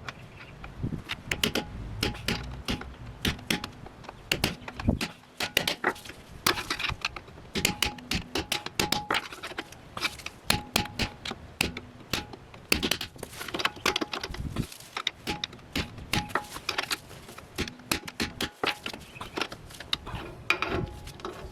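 Metal tool prying and scraping at a stubborn rear axle oil seal in a Toyota Hilux axle housing: a fast, irregular run of sharp metallic clicks and scrapes, with a faint ringing from the metal.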